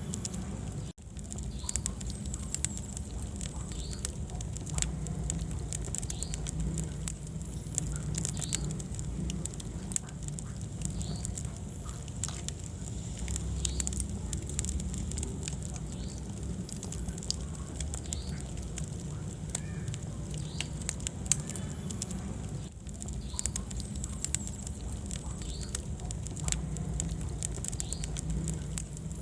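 Wood fire burning in a fireplace, crackling with frequent sharp pops over a steady low rumble. The sound drops out for an instant about a second in.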